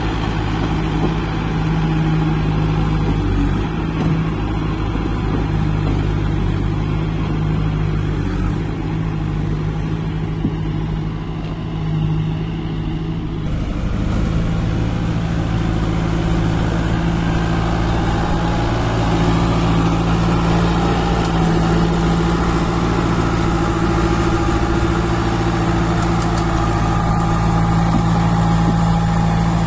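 JCB 2DX backhoe loader's Kirloskar diesel engine running steadily. About halfway through it becomes a little louder and harsher.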